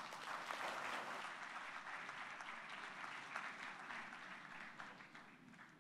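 Audience applauding after a speech, the clapping dying away toward the end.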